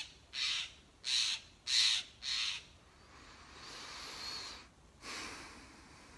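A man breathing hard close to the microphone: quick breaths about half a second apart, then two slower, longer breaths.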